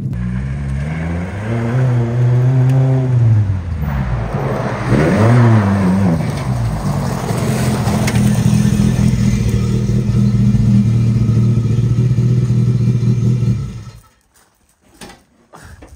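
Volvo 240 rally car's engine revved up and back down twice, then held steady at raised revs, cutting off near the end.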